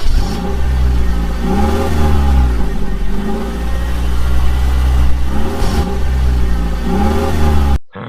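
An engine running with a steady low rumble, its pitch rising and falling in repeated revs; it cuts off abruptly near the end.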